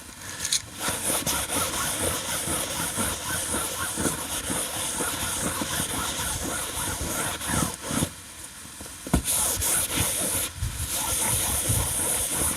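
Abrasive pad scrubbing the PVC fabric of an inflatable dinghy around a puncture, roughening the surface so the patch glue will bond. A continuous, uneven scrubbing hiss that pauses briefly about eight seconds in.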